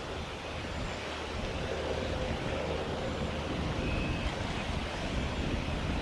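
Wind buffeting the microphone: a steady rushing noise with a heavy low rumble that grows slowly louder. A faint short whistle comes through about four seconds in.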